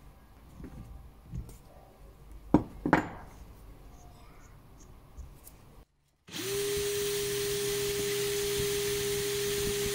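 Light clicks and two sharp metal knocks as a freshly threaded screw is handled in the die stock and drill chuck. After a short gap a drill spins up to a steady whine, turning the screw head against sandpaper to grind away the rust.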